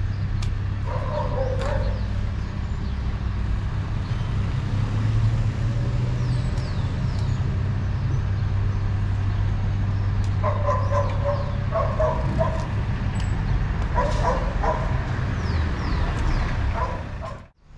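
A dog barking and yelping in short pitched calls, once about a second in and then several times in a cluster later on, over a steady low rumble of street traffic. The sound cuts out suddenly near the end.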